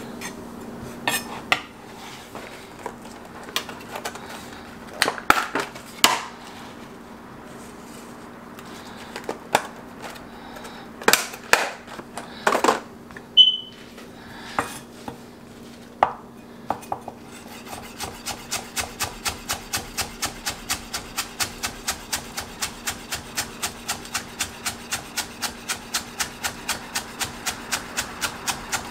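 Chef's knife striking a wooden cutting board: scattered, irregular knocks at first, then from about two-thirds of the way in a fast, even chopping of about four strokes a second as chives are cut finely.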